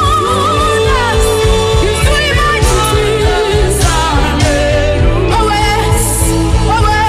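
Gospel worship music: a voice singing a wavering melody over a steady band accompaniment with bass and drums.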